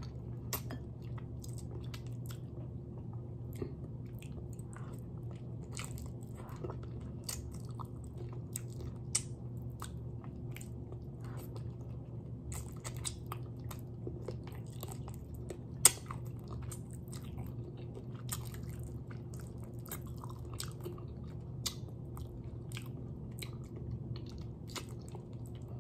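Close-up mouth sounds of a person gnawing and chewing adobo-braised chicken feet: many short, sharp crunching and smacking clicks, one much louder than the rest about two-thirds of the way through, over a steady low hum.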